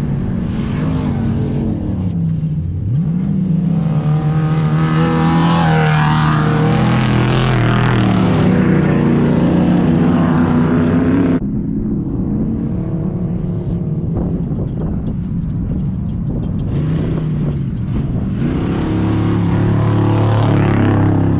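Off-road race vehicle engine revving up about three seconds in and holding high revs, then a sudden cut a little past halfway to a lower engine note that builds again near the end.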